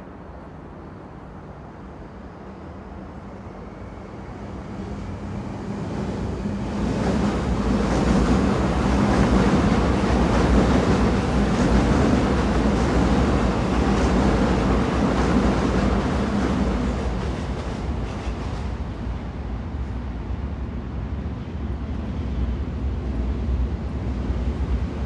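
Train running on the rails: a steady rumble and rushing noise that swells over the first several seconds, holds loud, then eases a little after about seventeen seconds.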